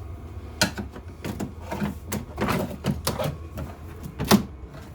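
An irregular series of sharp knocks, clacks and short scrapes from hard material being handled and worked by hand, the loudest knock near the end.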